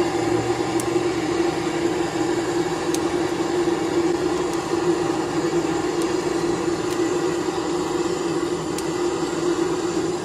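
Handheld gas torch running with a steady roar as it lights oak logs in a smoker firebox, with a few faint crackles from the wood catching fire.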